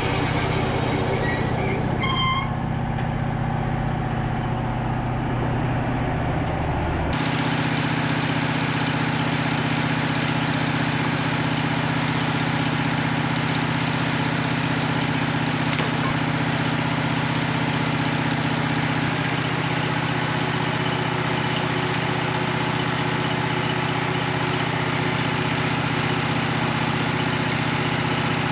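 Band sawmill's engine running steadily. The sound changes abruptly about seven seconds in, then holds steady.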